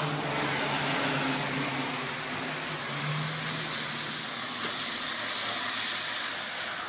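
A van's engine running with a steady low hum over a broad hiss, slowly fading as the van moves off along the road.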